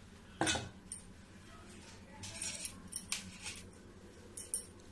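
Kitchen handling noises as raw dough strips are picked up off a stone counter and put into a steel plate: a sharp knock about half a second in, then a few light clinks and rustles.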